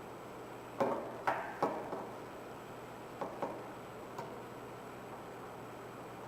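CNC channel-letter bending machine clicking sharply as it works the metal strip: three clicks about a second in, two more around three seconds in and a faint one after, over a steady hiss.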